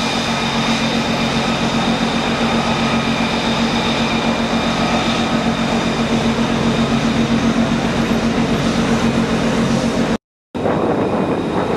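F-35B jet engine running at takeoff power: a loud, steady rush with several steady whining tones over it. It breaks off abruptly for a moment near the end.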